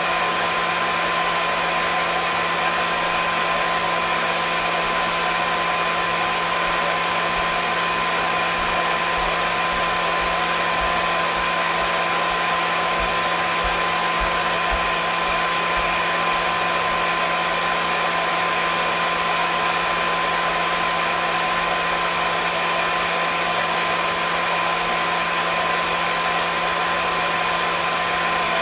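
Hair dryer running steadily: an even rushing hiss of blown air with a constant motor hum and a steady whine near 1 kHz, unchanging throughout.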